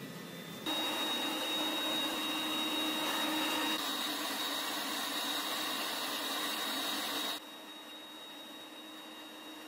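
Gas forge burner running with a steady rushing noise and a thin, high, steady whistle; the sound steps up abruptly just under a second in and falls back to a quieter hiss about seven seconds in.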